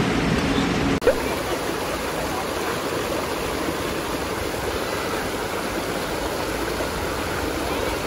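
A low steady hum that cuts off abruptly about a second in, then a shallow mountain stream rushing over rocks: a steady, even rush of water.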